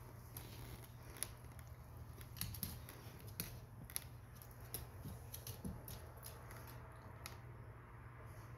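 Faint, scattered sharp clicks and light ticks as a small Terrier-Chihuahua mix paws at and mouths a tangle of yarn on a hardwood floor.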